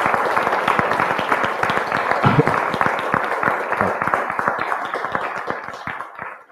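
Audience applauding, a dense clatter of many hands that thins out and dies away near the end.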